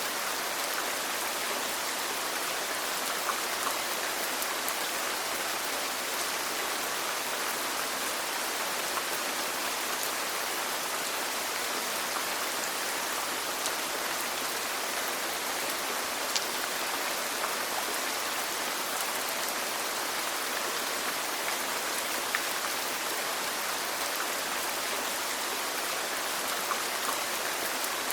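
Steady rain falling, an even hiss with scattered ticks of single drops striking a surface.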